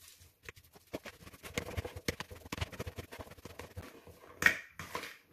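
A fork mashing and crumbling extra-firm tofu in a bowl: a quick, uneven run of taps and scrapes of the tines against the bowl, with one louder clink about four and a half seconds in.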